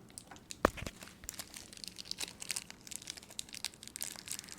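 Plastic toy packaging crinkling and tearing as a small blind bag is opened by hand, with a single sharp knock a little under a second in.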